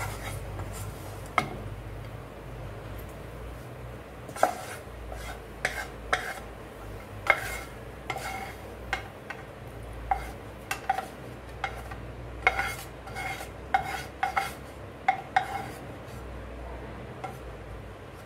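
Spatula stirring and scraping fried bitter gourd and onion in a pan, with a string of short ringing clinks of utensil against metal cookware, most of them between about four and sixteen seconds in.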